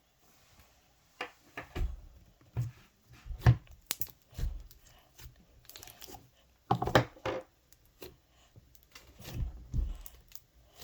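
Slime being handled, giving irregular crackling snaps and pops with occasional soft low thuds, in uneven clusters.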